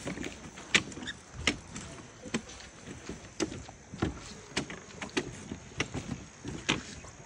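Giant pandas biting and chewing bamboo: sharp, irregular cracks and crunches, roughly one every second or less.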